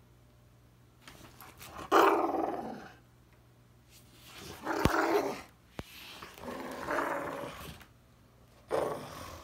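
Pit bulls playfighting, growling in four short bouts, the loudest about two seconds in, with a sharp knock near the middle.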